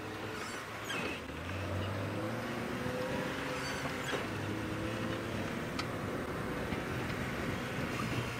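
Open safari vehicle driving along a bumpy dirt track: steady engine hum under rumbling road noise, with a few sharp knocks from the vehicle jolting.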